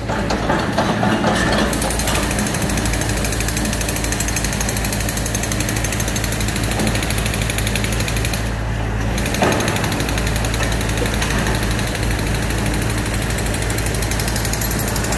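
Demolition-site machine noise: the Hyundai HX235 excavator's diesel engine running steadily under a rapid, even hammering that goes on without a break.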